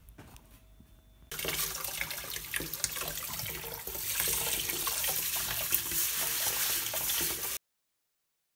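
Tap water running onto rice in a stainless steel sieve over a sink, rinsing the rice. The flow starts abruptly about a second in as a steady splashing hiss and cuts off suddenly near the end.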